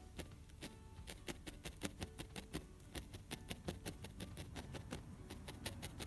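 A felting needle stabbing repeatedly into red wool on a felting mat, a fast, uneven series of faint crisp clicks, about six a second, as the wool is worked in.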